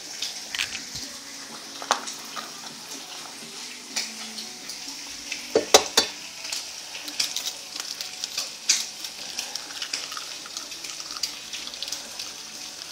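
Eggs sizzling in hot oil in a frying pan, a steady high hiss with many small crackling pops. Several sharper knocks sound against the pan, the loudest a pair about six seconds in.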